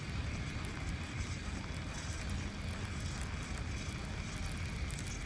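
Steady low outdoor background rumble with a faint, steady high-pitched hum running through it, and no distinct event.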